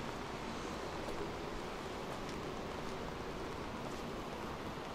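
Light rain falling steadily, an even hiss with a few faint drip ticks and a low rumble underneath.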